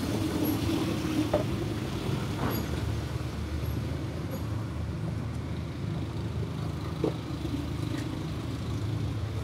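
Road traffic passing on the street below, a steady low engine noise, with a couple of short light clicks about a second and a half in and again near the end.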